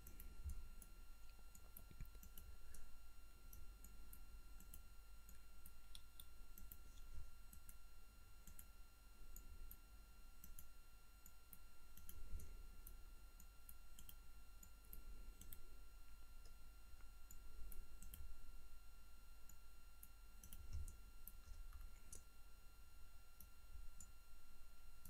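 Faint, scattered clicks of a computer mouse and keyboard, over a low steady hum and a thin steady whine.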